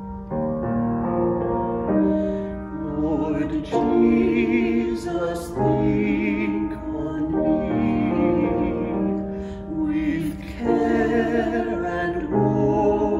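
A man and a woman singing a song together with piano accompaniment. The piano plays alone at first, the voices come in a few seconds in, and the woman's voice carries a strong vibrato.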